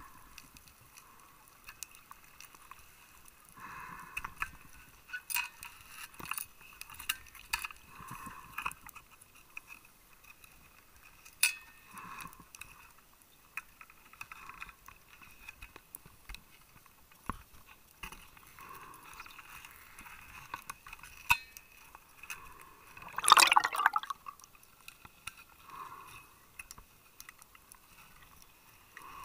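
Underwater sound of a scuba diver's exhaled regulator bubbles gurgling in bursts every few seconds, with scattered sharp clicks. The loudest bubble burst comes a little after three-quarters of the way through.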